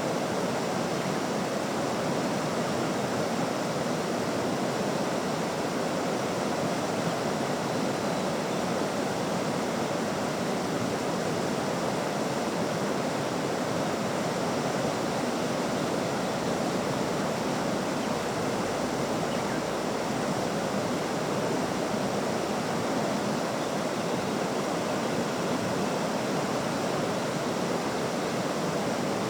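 River water rushing at a steady, unchanging level.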